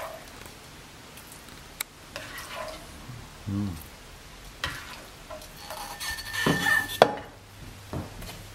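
Serving spoon scraping and knocking against a frying pan and a ceramic plate as pasta in sauce is spooned out, with scattered sharp clicks, the loudest about seven seconds in.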